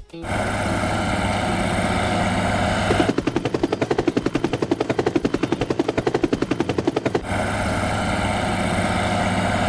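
Cartoon machine sound effect: a steady engine hum, then about four seconds of rapid hammering at about ten strikes a second, then the steady hum again.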